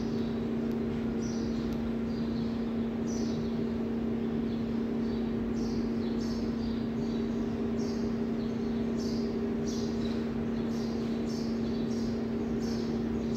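A small bird chirping over and over in short, high, falling chirps, sparse at first and about two a second in the second half, over a steady low electrical hum that never changes.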